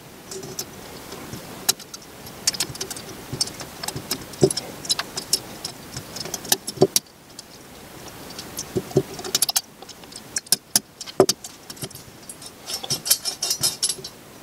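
Small metal parts of a VTG turbocharger's variable-vane mechanism clicking and rattling as they are handled and moved by hand, with short bursts of jangling about two-thirds of the way in and again near the end.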